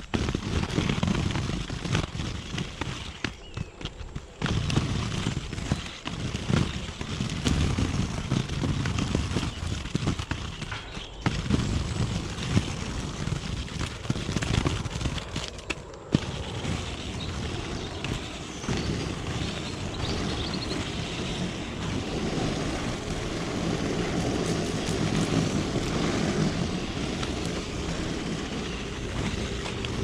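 Inline skate wheels rolling over a gravel path, with a gritty crunching and crackling as he strides. About halfway through the path turns to tarmac and the rolling becomes a smoother, steadier rumble.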